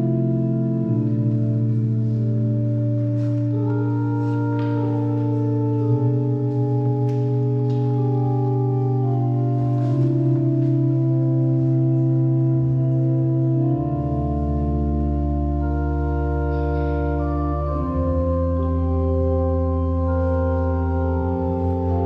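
Church organ playing slow, held chords, with a deep bass note coming in about two-thirds of the way through.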